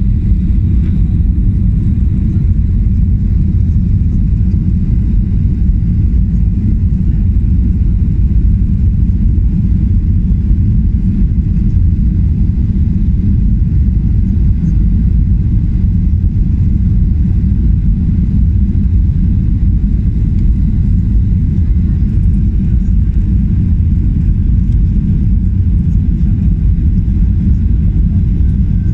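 Steady low rumble inside a jet airliner's cabin on final approach to land: engine and airflow noise, unchanging throughout.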